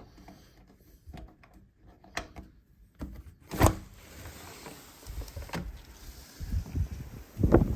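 Small handling clicks, then a door opening about three seconds in, with a sharp knock, lets in the steady hiss of a blizzard. Near the end strong gusts of wind buffet the microphone.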